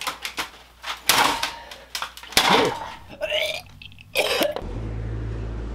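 A run of short, sudden sounds: wordless vocal noises like coughs and grunts, mixed with knocks. About four and a half seconds in they stop and a steady low hum takes over.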